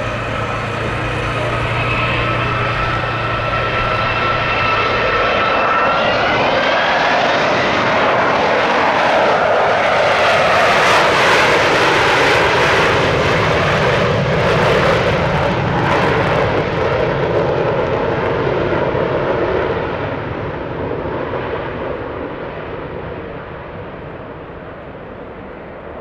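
A Vickers VC10's four Rolls-Royce Conway jet engines: a steady whine rises in pitch about six seconds in as the engines go to full power for a climb-away. It swells into loud jet noise and then fades as the aircraft departs.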